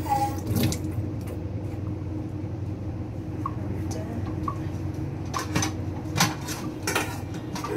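Kitchen dishes and cutlery clattering: a handful of separate clinks and knocks, a couple near the start and several more in the last few seconds, over a steady low hum.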